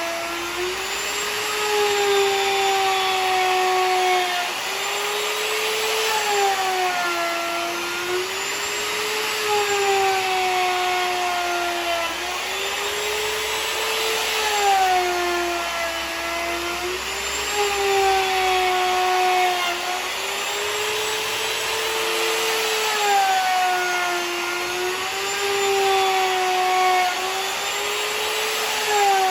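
Electric router milling a walnut tabletop flat, its motor whining steadily with a hiss of cutting. The pitch sags and recovers every few seconds as the bit takes load on each pass.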